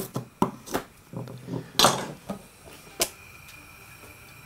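Kitchen knife chopping a carrot on a plastic cutting board: a few irregular knocks over the first three seconds. After that a faint steady high whine runs on.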